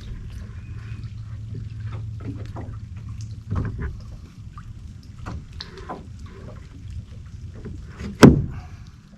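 Knocks and bumps in a small fishing boat, with a steady low hum for the first three seconds or so and one loud, sharp thump about eight seconds in.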